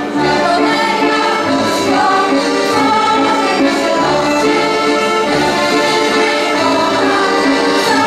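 Polish folk song sung by a group of voices over instrumental dance-music accompaniment.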